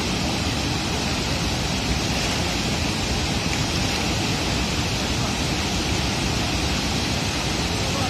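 Wide curtain waterfall pouring over a long rock ledge into its pool, a steady, even rush of falling water.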